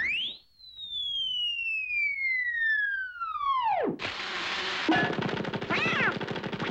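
A cartoon slide whistle sweeps up quickly, then glides down in one long falling whistle for about four seconds. A fast rattling clatter then cuts in, with Donald Duck's squawking voice near the end.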